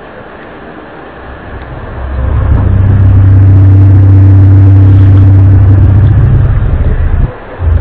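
Loud, low droning hum, one of the reported unexplained 'strange sounds' from the sky in an amateur recording. It swells in about two seconds in, holds steady, and breaks off briefly near the end before returning.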